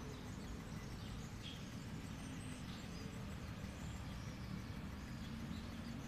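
Quiet outdoor ambience: a steady low rumble with a few faint, scattered bird chirps.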